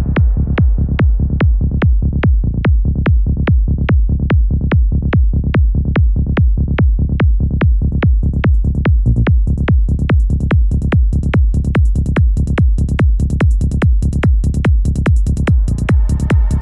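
Electronic trance music with a steady kick drum at about two beats a second. Hi-hats come in about halfway and the sound grows brighter toward the end.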